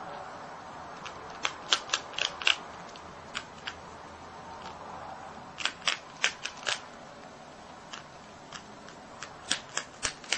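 A marmot crunching a cracker: three bursts of sharp, crisp bites, with a few single crunches between, over a steady faint hiss.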